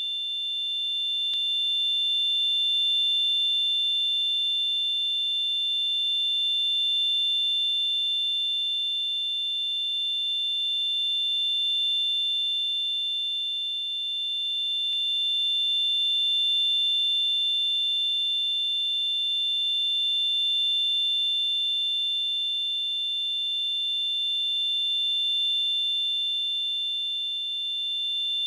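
Simulated tinnitus: a steady high-pitched ringing of two close tones over a faint hiss. It swells and eases slowly in loudness and never breaks.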